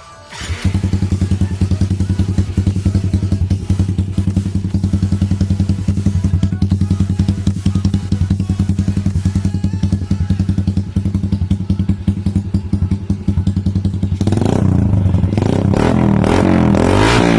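Suzuki Smash 115's single-cylinder four-stroke engine through a Daeng Sai4 open pipe, loud. It starts in about half a second, then idles with a rapid, even popping beat, and is revved up and down near the end.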